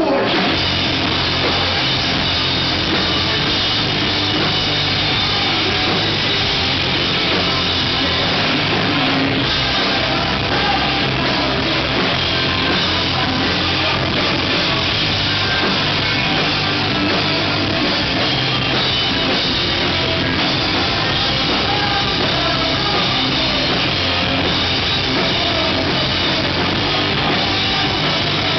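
Live rock band playing loud and without a break: electric guitars, bass guitar and drum kit.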